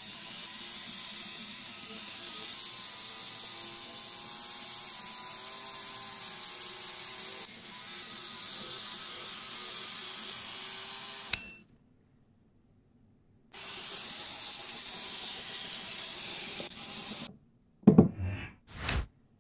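The electric motors and gear trains of a Lego Technic walking robot, whirring steadily with a wavering pitch. The whir cuts out about 11 seconds in for a couple of seconds, then resumes. A few loud knocks come near the end.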